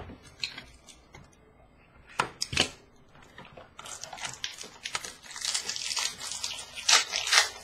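Hockey card box and pack packaging being opened by hand: a few sharp snaps, then about four seconds of crinkling and tearing of the wrapper.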